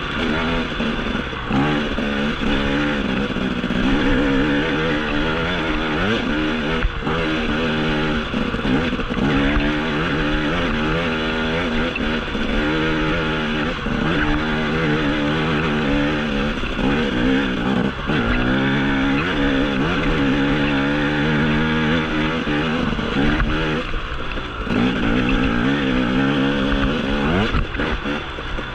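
2016 Husqvarna TE250 two-stroke single-cylinder enduro engine being ridden. Its pitch climbs and drops again and again as the throttle opens and closes, with brief lulls between pulls.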